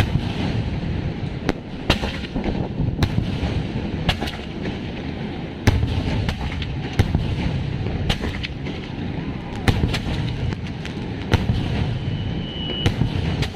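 Fireworks going off: sharp bangs at irregular intervals, about one a second, over a continuous crackling rumble, with a short high whistle near the end.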